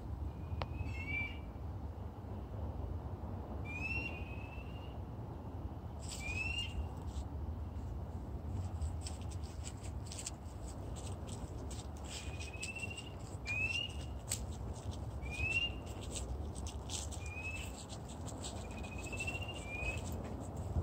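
Calling animals at night: short, high, upslurred peeps repeated every second or two, over a busier background of many faint short calls and a low rumble.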